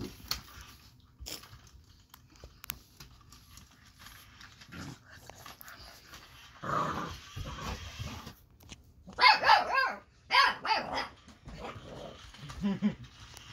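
Eight-week-old boxer puppy growling and barking while attacking a rolling robot toy: a rough growl about seven seconds in, then a quick run of high puppy barks about nine seconds in, the loudest sound, and a short low growl near the end.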